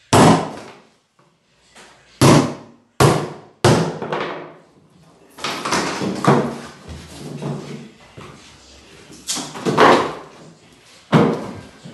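Hammer blows nailing carpet gripper strip to wooden floorboards along the skirting: four sharp strikes within the first four seconds, followed by rougher knocking and scuffing.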